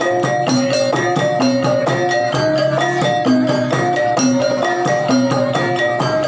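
Javanese gamelan music: metallophones play a short melodic figure over and over, with quick percussion strokes.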